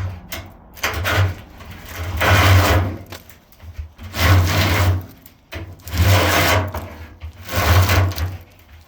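Copper wire being pulled through a drilled-hole homemade wire-stripping jig, in about five strokes, one every second and a half to two seconds, stripping off the insulation.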